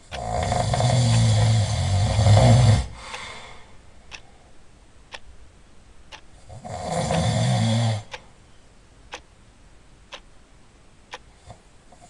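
Two long, loud snores: the first lasts about three seconds, and the second, about a second and a half long, comes just past the middle. A clock ticks about once a second between them.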